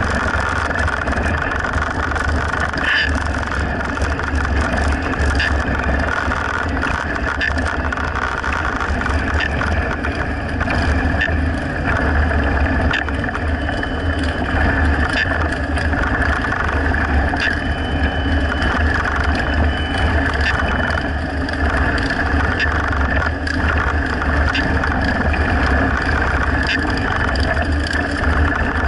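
Several motorcycles running along at riding speed, a steady engine drone with a deep rumble, with wind rushing over the microphone of the moving bike.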